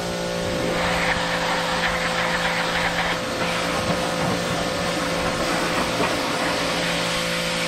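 Electric pressure washer running steadily, its motor and pump giving a constant hum under the hiss of the water jet spraying onto a mower deck.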